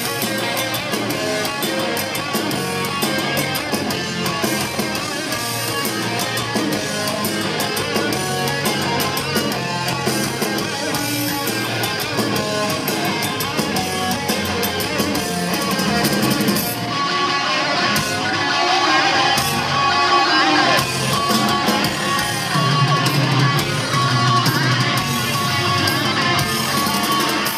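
Heavy metal song played live by a band, recorded from the crowd: two electric guitars over drums and bass. Fast, driving playing gives way a bit past halfway to held lead notes that bend in pitch.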